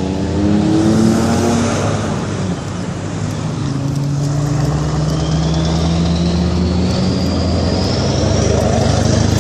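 Car engine running at low revs as the car is manoeuvred backward off the road, with a faint whine rising steadily in pitch over the second half.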